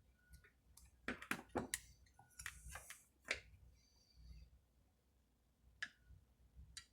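Scattered light clicks and taps of small chainsaw parts being handled as its hoses are pushed into place, with a short scuffing rustle near the middle.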